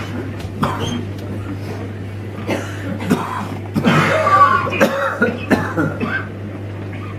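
Noise-music improvisation over a steady electrical hum: scattered clicks and knocks, then about two seconds of harsh, rasping scraping sound starting about four seconds in.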